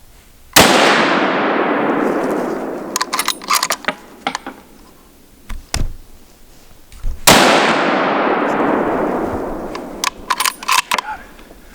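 Two rifle shots about six and a half seconds apart, each a sharp crack that is the loudest sound, with a long echo rolling away over about three seconds. After each echo comes a quick run of sharp clicks.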